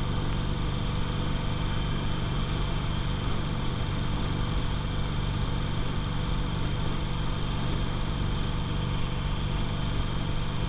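2008 Harley-Davidson Sportster 883's air-cooled V-twin engine running at a steady cruise in fifth gear, with wind rushing over the microphone.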